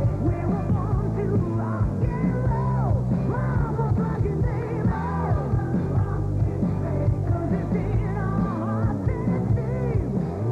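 Live rock band playing loud amplified electric guitar, bass and drums, with a woman singing over it, recorded from the audience.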